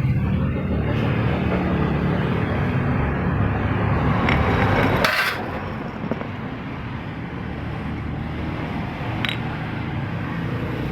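A motor running steadily with a low rumble, and one sharp metallic clank about five seconds in, after which the running sound is quieter. A few lighter clicks follow.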